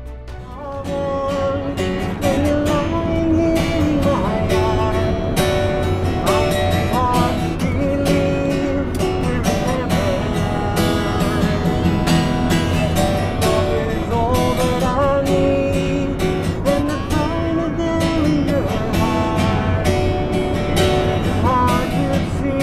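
Music: an acoustic guitar strummed steadily under a singing voice, coming up in level over the first couple of seconds.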